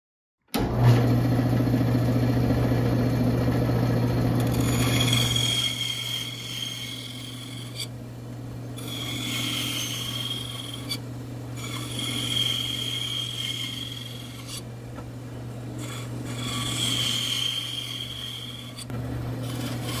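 Band saw running with a steady motor hum, its blade cutting dovetail tails into a wooden board. There are several rasping cuts of a couple of seconds each, separated by short pauses as the board is repositioned.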